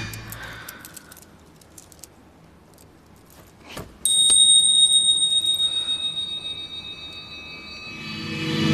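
A small metal bell struck once about four seconds in, its high ring fading slowly over several seconds, after a few faint taps. Music swells in near the end.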